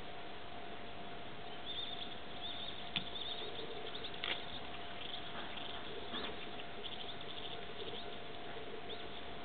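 Outdoor ambience: a steady hiss with a faint steady hum, and scattered short, faint high chirps. No distinct train sound stands out over it.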